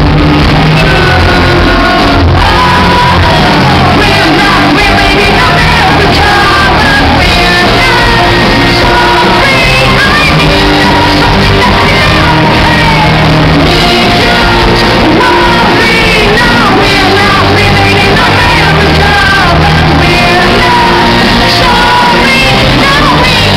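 Live band playing very loud: a woman singing lead into a microphone over drums, electric guitar and keyboard.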